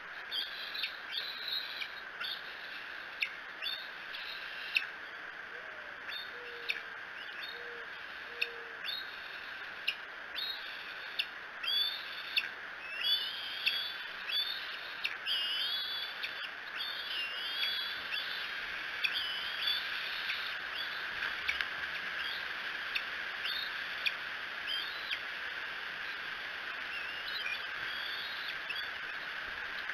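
Bald eagles' high, thin chirping calls, repeated many times with rising-and-falling squeals, busiest in the middle and thinning out near the end, over a steady background hiss.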